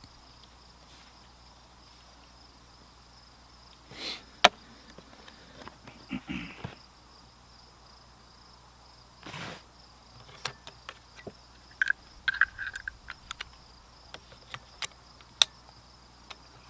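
Scattered sharp clicks and light knocks of ear muffs and rifle cartridges being handled, the loudest about four and a half seconds in and a cluster near the end. Under them runs a steady faint high chirring of insects.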